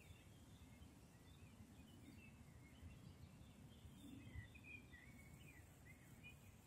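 Faint forest ambience: distant birds chirping in short, scattered notes, busiest about four to five seconds in, over a low, steady rumble.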